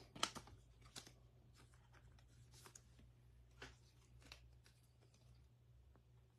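Faint rustling and a scattering of soft clicks from trading cards being handled and set down, over a low steady room hum.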